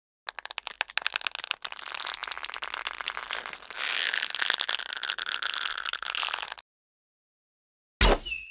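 Film sound effect of an Ewok bow held at full draw: the string and wooden bow creak and crackle under tension for about six seconds, then stop abruptly. Near the end a sharp snap of the arrow being loosed, with a brief ringing twang.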